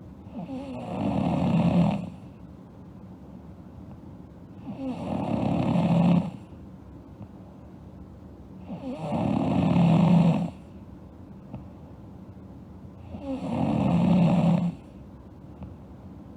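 A girl snoring in her sleep: four snores about four seconds apart, each building in loudness over a second and a half and then stopping abruptly.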